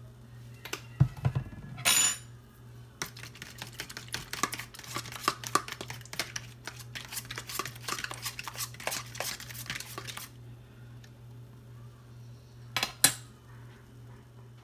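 Fork whisking beaten eggs and mustard in a plastic container: fast, dense clicking of the fork against the plastic for about seven seconds. Before it, a thump about a second in and a sharp clatter; near the end, one sharp knock.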